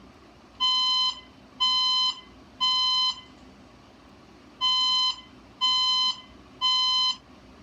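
Fire alarm evacuation tone in the temporal-three pattern: two groups of three half-second beeps, about a second apart, with a longer pause between the groups. This is the standard building-evacuation signal, sounding between repetitions of the voice evacuation message.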